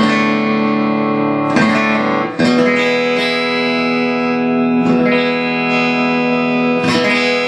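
Les Paul electric guitar with Baggs piezo acoustic bridge saddles strummed through an amp, its piezo acoustic sound blended with the magnetic pickups. Five chords struck, each left ringing.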